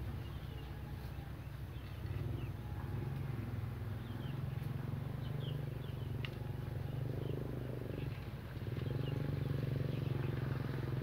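A motor running with a steady low drone that dips briefly about eight seconds in, with small birds chirping now and then.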